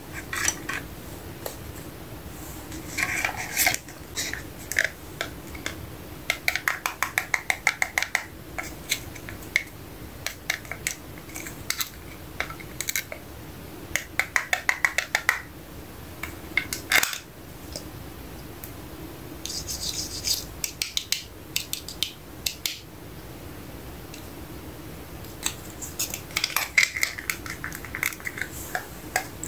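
Fingers handling a tiny plastic toy box and small plastic toy pieces: runs of quick light clicks and taps, several a second, with scratching and a brief rustle of plastic.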